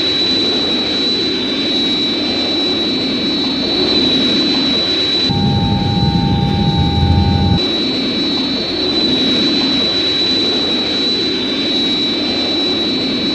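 Jet aircraft engine sound effect: a steady rushing engine noise with a high, constant whine. About five seconds in, for two seconds, the whine gives way to a deeper rumble with a low hum, then the whine returns.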